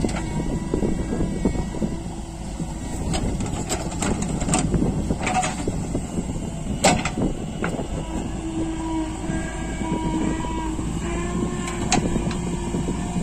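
Diesel engines of farm tractors and a JCB 3DX backhoe loader running hard under load: a steady low rumble. Several sharp knocks and clanks come through, and one engine note climbs slightly in pitch in the second half.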